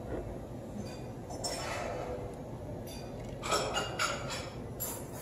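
Ice cubes clinking against a glass: a few light clinks with a glassy ring, the loudest about three and a half seconds in, over a steady low room hum.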